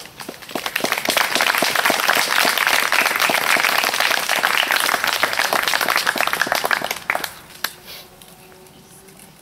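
Crowd applauding: many people clapping, the applause swelling within the first second, holding for about six seconds, then dying away with a few last claps.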